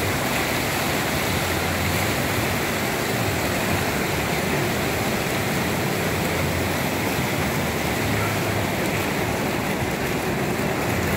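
Steady rushing of a large artificial waterfall, a dense, even roar of falling water.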